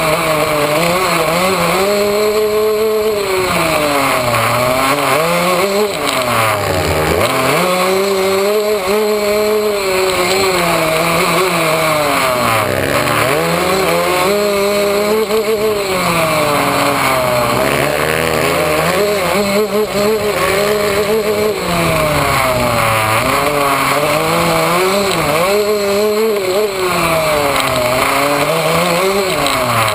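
Yamaha YZ125 two-stroke dirt bike engine, heard up close from on the bike, revving up and dropping back again and again every few seconds as the rider works the throttle and gears along a dirt track.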